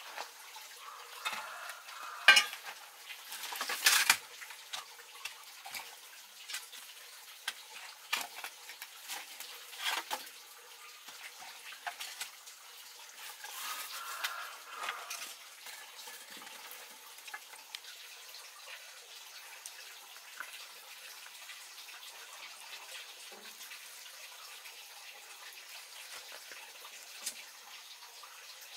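Clinks and knocks of a metal bowl, a glass jar and utensils being handled at a clay stove, loudest in the first few seconds, thinning out to a faint steady hiss in the second half.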